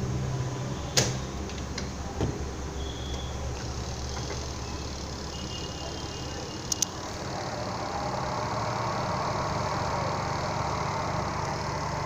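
Spin dryer of a Samsung 6.5 kg semi-automatic washing machine running: a steady motor hum and whir that grows fuller and a little louder about halfway through, with a few sharp clicks, the last a quick double click about seven seconds in.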